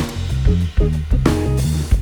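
Background music: an instrumental track with a drum kit beat and a bass line.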